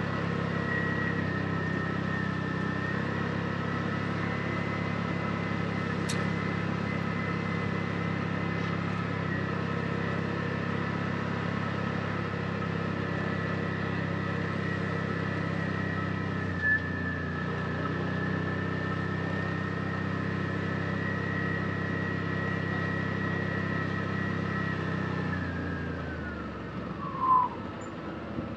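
Side-by-side UTV engine running steadily at trail speed, with a steady high whine over it. Near the end the engine note drops and the whine falls in pitch as the machine slows, with a brief sharp sound as it does.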